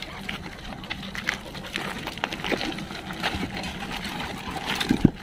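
Footsteps and dogs' paws crunching and scuffing over loose stones, a string of irregular short clicks and scrapes, with a louder knock just before the end.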